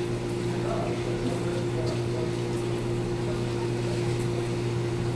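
Armfield pipe-friction test rig's water pump running with a low, steady hum.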